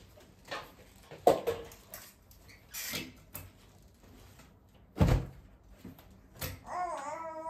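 Several knocks and thumps, like doors or cupboards being shut, the loudest about a second in and again about five seconds in, with a short hiss between them. Near the end a brief wavering voice-like call begins.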